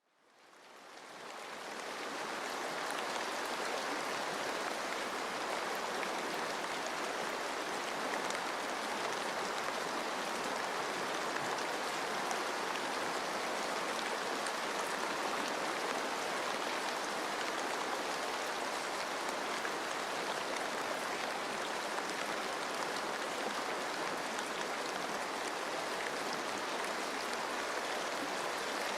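Steady rain falling in a forest together with running water, an even continuous hiss with scattered drop patter. It fades in over the first couple of seconds, then holds level.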